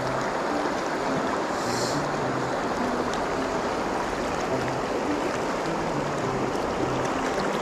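Steady rush of a river riffle, fast shallow water running over rocks.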